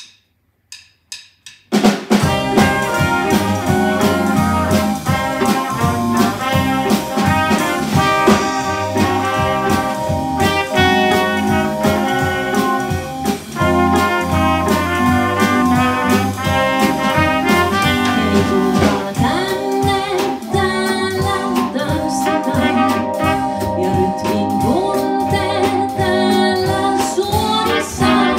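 A live band starts a dance number after a few sharp clicks of a count-in, then plays on steadily with horns and drum kit.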